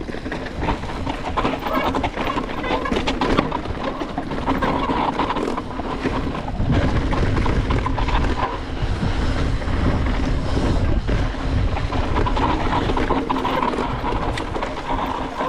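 Mountain bike descending a rough dirt and rock trail: tyres rumbling over the ground and the bike rattling and clattering over bumps, with wind buffeting the camera microphone.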